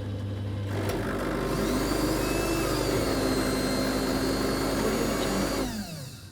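Automatic cappuccino machine running. A low steady hum gives way, about a second in, to a louder motor that spins up with a rising whine over a hissing, churning noise. It runs steadily, then winds down with a falling pitch and stops near the end.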